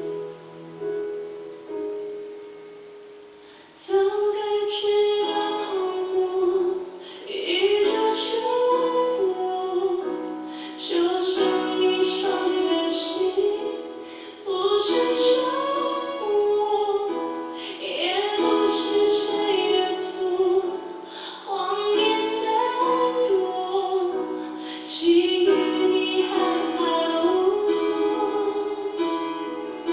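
A pop song with a female voice singing, played through the built-in 8W+8W speakers of a BenQ 65IZ7500 LCD TV, with little deep bass. The accompaniment plays softly at first, and the singing comes in about four seconds in.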